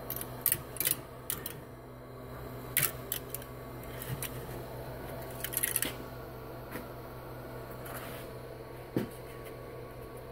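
Scattered clicks and light knocks of a hard PLA 3D print being handled and worked loose, with a quick cluster about halfway through and a duller knock near the end, over a steady low hum.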